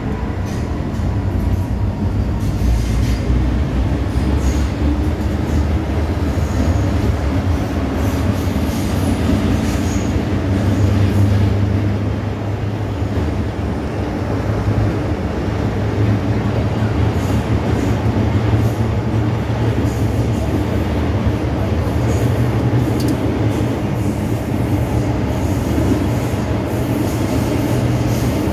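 Metro-Cammell M-Train electric multiple unit of the Hong Kong MTR running, heard from inside the car: a steady, loud rumble of wheels on rail and running gear, mostly low in pitch.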